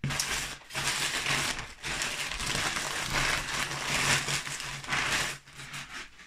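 Plastic mailing bag and bubble wrap crinkling and rustling as a parcel is torn open and its contents pulled out by hand, easing off near the end.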